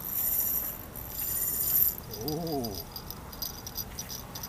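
Fishing reel's free-spool clicker buzzing in two short runs and then ticking fast as a carp takes line on the bite. A brief low voiced hum sounds midway.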